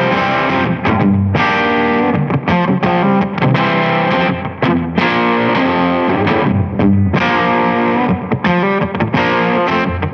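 Playback of a recorded distorted electric guitar part: chords ringing out, with brief breaks between phrases.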